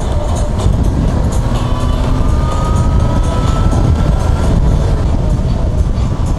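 Yamaha FZ6R inline-four motorcycle riding at speed, steady wind rush on the helmet-mounted microphone mixed with the engine, with a faint whine rising slowly through the middle.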